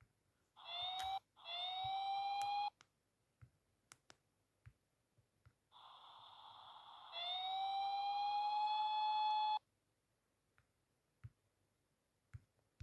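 A sound effect playing back: a whining tone with overtones that glides slightly upward, heard in two short blasts of about a second each. About five seconds in comes a hiss with a high tone, running into a longer whine of about two and a half seconds. Faint taps fall between them.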